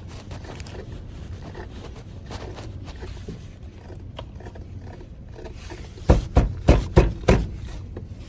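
Low steady hum with faint scraping and handling noises, then, from about six seconds in, a run of sharp loud knocks, about three a second.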